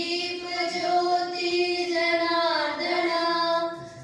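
Female singing of a devotional prayer song (vandana) in long held notes, the melody dipping lower a little past the middle and fading just before the end.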